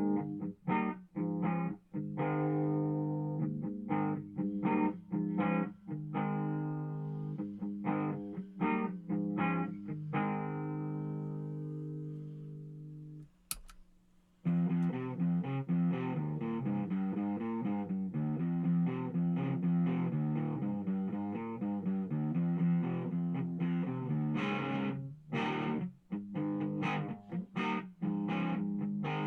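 Electric guitar played through a handmade effects pedal for a tone test: notes and chords ringing out with short gaps, then a brief pause with a click about halfway through, then busier, continuous playing.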